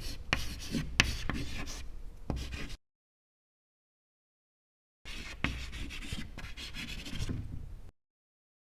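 Scratchy rubbing and scraping noise with a few sharp clicks, in two stretches of about three seconds each with a dead-silent gap between them.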